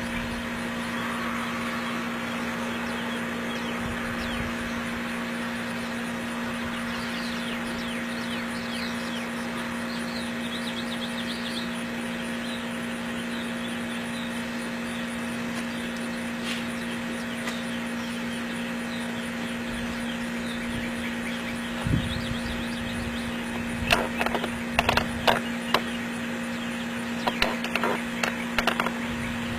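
Steady mechanical hum with a few fixed tones running throughout, joined in the last several seconds by a quick series of sharp clicks and knocks.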